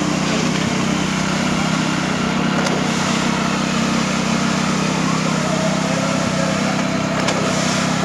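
An engine running steadily at a constant pitch, typical of construction-site machinery.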